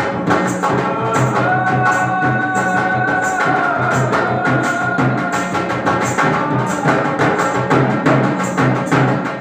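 Music with a fast, steady drum beat under a held, sustained melody.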